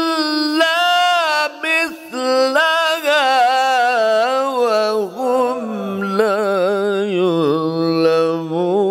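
A man reciting the Quran in melodic tajweed style into a microphone, drawing out long held notes with rapid wavering ornaments. About halfway through, his pitch steps down to a lower register for the rest of the phrase.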